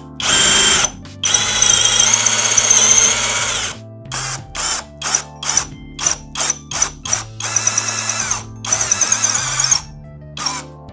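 Deko 20V cordless brushless drill boring a hole through plywood in a drilling jig, its whine starting and stopping with the trigger. There is a long run about a second in, then a string of short trigger blips, then another long run near the end.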